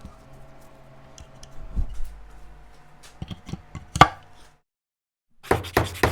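Scattered knocks and taps on wood over a faint hum, the loudest about four seconds in. After a brief dropout, quick back-and-forth sanding strokes on wood, about four a second.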